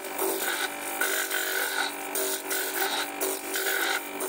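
A stone being ground by hand on the spinning disc of a water-fed flat lap: a gritty scraping that swells and fades unevenly as the stone is pressed and moved, over the steady hum of the lap's motor.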